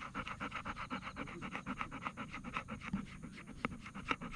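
Golden retriever panting close up, quick even breaths at a steady pace.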